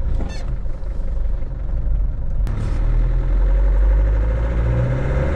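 Truck engine running as it pulls away and gathers speed on a wet road. Tyre and road hiss joins in about halfway, and a whine rises steadily in pitch near the end.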